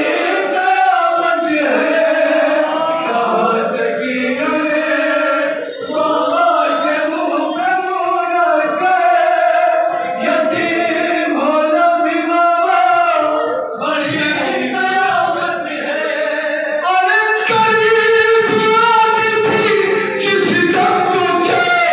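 A group of men singing a noha, a Shia mourning lament, in unison behind an amplified lead voice. A beat of sharp strikes joins the singing near the end.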